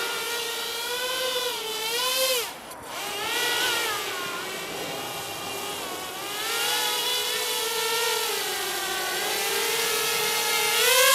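Walkera F210-3D quadcopter's brushless motors and propellers whining in flight, the pitch rising and falling as the throttle changes. About two and a half seconds in, the whine briefly drops away, then comes back and swells near the end.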